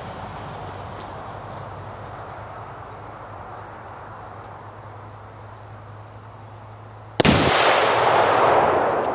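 A pound of Tannerite exploding about seven seconds in: one sudden loud blast, then a long rolling boom that fades slowly over the next couple of seconds. Before it there is only a steady low outdoor hiss with a faint high whine.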